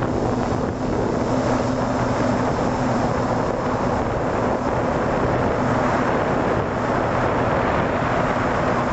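An FPV aircraft's electric motors and propellers run with a steady hum, heard from on board. Wind rushes over the camera's microphone.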